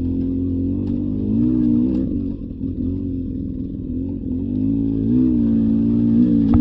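Beta 300 RR two-stroke dirt bike engine running on the trail. Its pitch rises and falls with the throttle, with swells about a second and a half in and again near five seconds.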